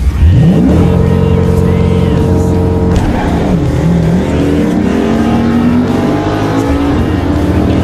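2007 Mustang GT's 4.6-litre V8 launched hard off an MSD two-step launch limiter at the drag strip, heard from inside the cabin. The engine note jumps up in pitch just after the start, pulls through first gear, dips and recovers at a gearshift about three and a half seconds in, then climbs again under full throttle.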